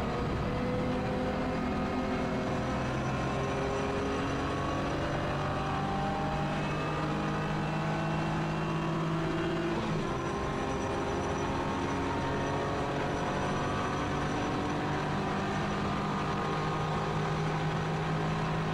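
BMW E46 325ti Compact's 2.5-litre straight-six engine under load, heard from inside the cabin, its pitch rising slowly as the car accelerates, with a short dip about halfway through.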